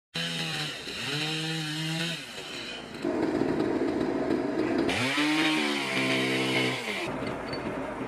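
Two-stroke chainsaw revving in several throttle bursts, its pitch rising and holding each time, with a rougher, noisier stretch between the bursts.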